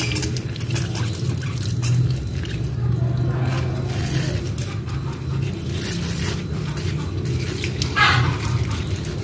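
Water from a garden hose running and spattering over the leaves and stem of a plant as it is rinsed by hand, over a steady low hum. A brief louder splash or rustle comes near the end.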